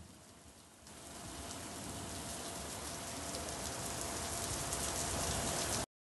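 Rain falling steadily onto wet paving, a dense hiss of small drop hits that grows louder about a second in and cuts off abruptly just before the end.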